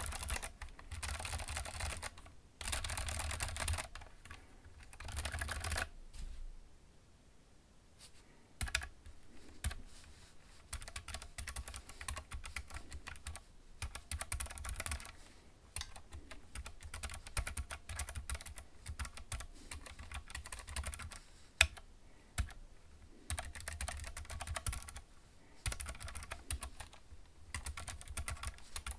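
Typing on a MOTHWING 44-key split mechanical keyboard with tactile Kailh Box Brown switches and ABS keycaps: fast runs of clacking keystrokes. There is a short pause about a quarter of the way in.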